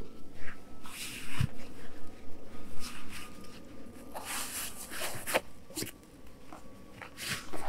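Irregular rustling, crunching and small knocks, as of things being handled close by, with one duller thud about a second and a half in and a faint steady high hum underneath.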